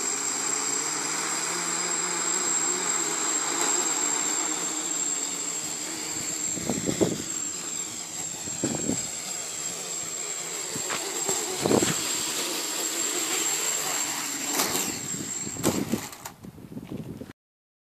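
Homemade quadcopter's electric motors and propellers running with a steady whir and a constant high whine, the motor pitch shifting as it flies. A few brief thumps break in, and the sound cuts off suddenly near the end.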